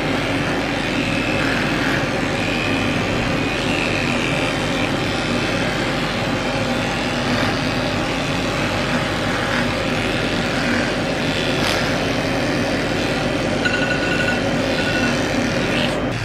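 Electric dog grooming clippers running with a steady buzz as they shave short fur from a dog's neck and chest.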